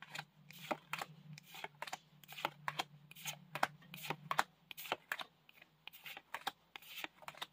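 Pokémon trading cards being flicked one by one from the front to the back of a freshly opened booster pack: an irregular string of short, soft card-on-card snaps, about two or three a second.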